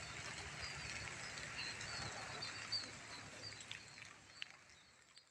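Steady hiss of light drizzling rain, with many short high chirps from small animals repeating throughout and a few sharp ticks, fading out over the last two seconds.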